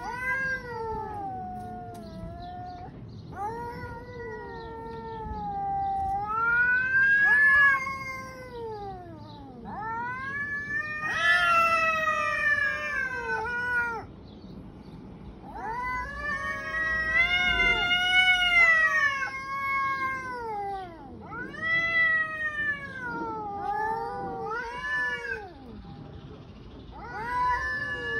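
Domestic cats caterwauling in a standoff: a series of long, wavering yowls, each a few seconds long, rising and falling in pitch, with short pauses between. This is the threat yowling that cats make before a fight.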